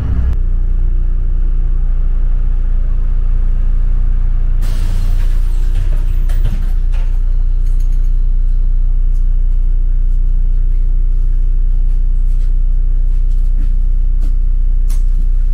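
Inside a moving city bus: the steady low rumble of the engine and road, with a burst of air hiss about five seconds in and scattered rattles and clicks after it.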